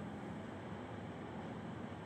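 Steady background hiss with a low, even hum and no distinct events.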